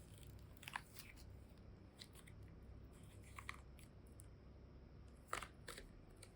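A few faint, short clicks and crackles from small objects being handled, over a low steady hum, with the two loudest close together near the end.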